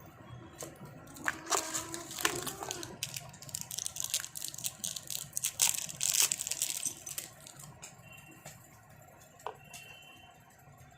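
Crinkling and crackling handling noise with many sharp clicks, busiest for the first several seconds and thinning to occasional light clicks near the end.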